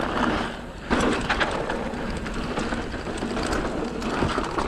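Kona Satori mountain bike riding fast on a dirt singletrack: steady tyre noise on packed dirt and leaf litter, with knocks and rattles from the bike over bumps and wind rushing past the microphone. A sharper jolt comes about a second in.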